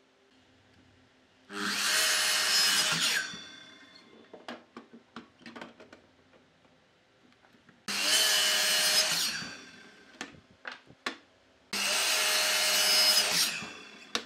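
Compound miter saw making three crosscuts through a reddish hardwood board: each time the motor whines up and the blade rasps through the wood, then winds down, with small knocks of the wood being moved against the fence between cuts.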